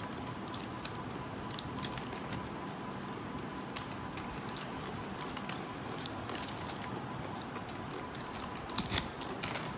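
Laminated picture cards being handled and peeled off the hook-and-loop strips of a PECS communication book: a run of small clicks and short rasps, busiest near the end.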